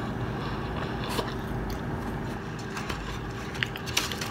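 Steady low background hum in the room, with a few faint short clicks.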